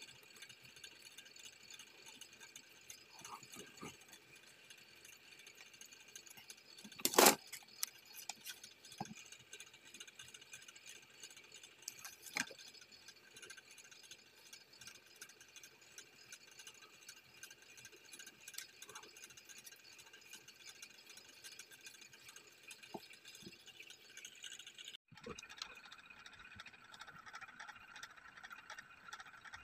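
Faint handling of velvet fabric and cardboard by hand over a steady hiss, with scattered light ticks. One sharp knock comes about seven seconds in and a lighter one about five seconds later.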